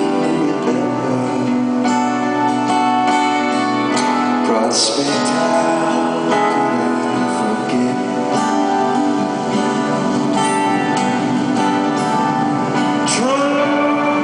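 Live band playing a slow song: strummed guitar with singing over it.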